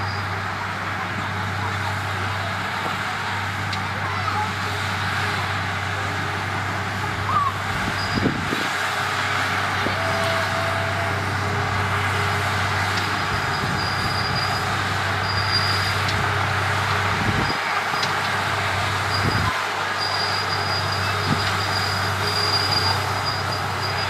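Bulldozer's diesel engine running steadily under work, with a few short knocks from the machine partway through.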